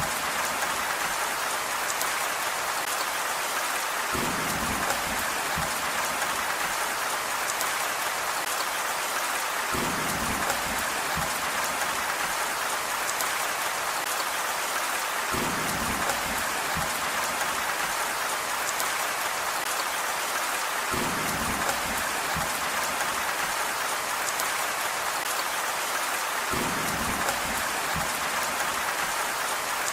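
Steady heavy rain hiss, even and unbroken, with a low rumble that comes back about every five to six seconds.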